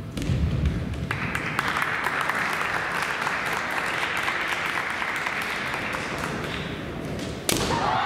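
Kendo bout: the fighters' drawn-out kiai shouts rise about a second in and hold, over light taps of bamboo shinai. About 7.5 s in comes a sharp, loud shinai strike that scores the point.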